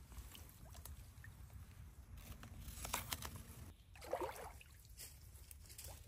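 Faint water sounds: small sloshes and trickling, with scattered clicks and one short louder splash about four seconds in.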